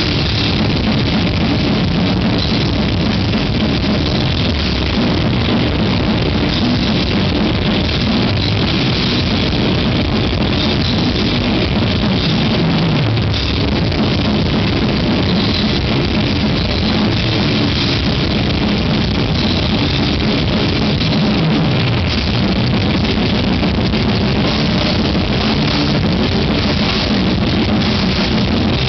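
Death metal band playing live, with distorted electric guitars and a drum kit, loud and continuous, heard from within the crowd.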